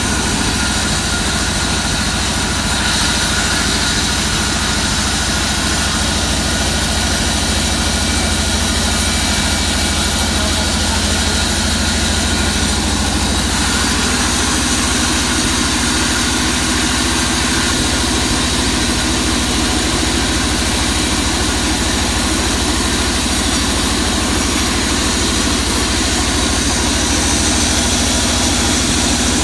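Vertical band sawmill running steadily while a waru log is pushed through its blade, sawing it along its length.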